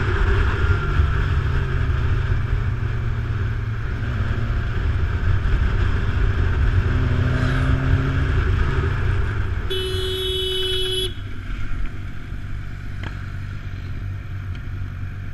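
Motorcycle riding along with a steady low engine note and wind noise. About ten seconds in, a vehicle horn sounds once for about a second. After that the engine noise drops lower as the bike slows to a stop.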